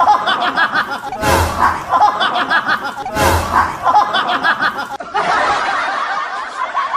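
Laughter: the same short laugh repeats about every two seconds, each time opening with a sudden noisy burst. About five seconds in, a different stretch of laughter takes over.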